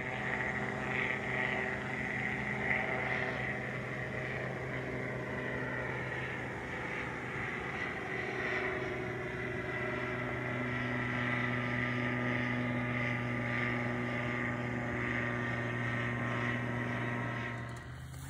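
Engine and propeller of a Moyes/Pitman Dragonfly ultralight tug plane running steadily overhead at towing power, pulling a hang glider aloft.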